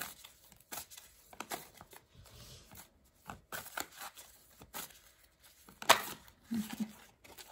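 A deck of tarot cards being shuffled by hand: irregular soft rustling and slapping of the cards, with a sharper snap about six seconds in.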